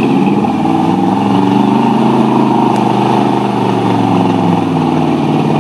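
Engine of a 1976 Ford F-250 Highboy pickup running loud and steady under load as the truck pulls through deep mud.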